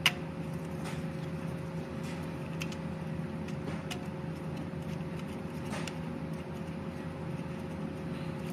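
A steady low hum with a constant tone in it, under a sharp click right at the start and a few faint clicks and knocks from a gloved hand working at the truck's starter mounting.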